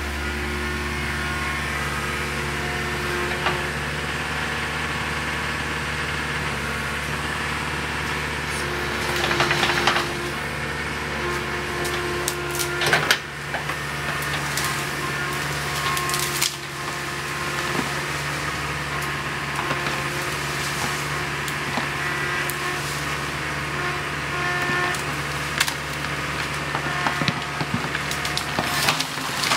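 Caterpillar 307 mini excavator's diesel engine running steadily under hydraulic load while its bucket pushes into a tree, with scattered cracks and snaps of breaking wood and branches, more of them near the end.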